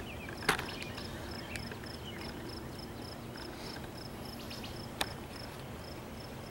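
An insect chirping in short, evenly spaced high pulses, about four a second, with two sharp clicks, one about half a second in and one about five seconds in.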